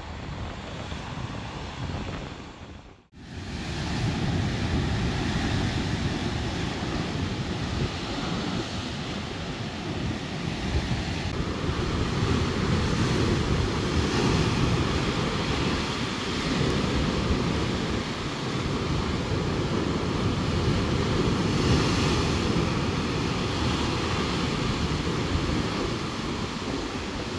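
Rough storm surf breaking and surging over rocks against a harbour wall, with wind buffeting the microphone as a steady low rumble. The sound drops out briefly about three seconds in, then comes back louder, swelling and easing as the waves break.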